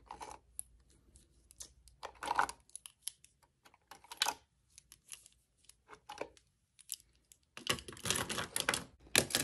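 Plastic pens clicking and rattling against each other as they are pulled one by one from a desk pen holder and set down on the desk. Near the end this turns into a denser run of rustling and clattering as the pens are gathered up together.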